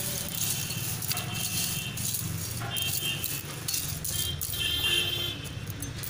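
Small stones of bitumen-coated aggregate and metal parts rattling and clinking in a steel extraction centrifuge bowl as the mix is pressed down and the bowl is handled, over a steady low hum.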